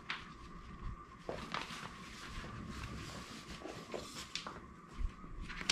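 Quiet rustling of the nylon chair seat with a few light taps and clicks as the aluminium frame pole tips are pushed into the seat's corner pockets.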